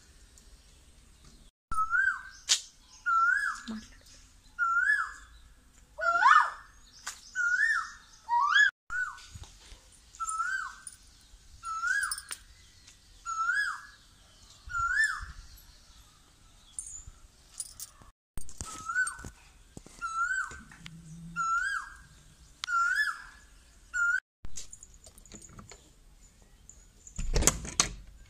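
Asian koel calling: the same rising whistled call repeated about once a second, in several stretches broken by short gaps. Near the end a loud, dull thump.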